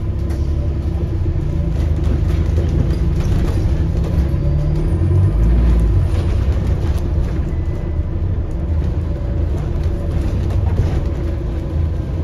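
London bus (registration YY16 YKR) heard from inside the passenger saloon while under way: a steady low engine and road rumble that swells about five seconds in and eases off again.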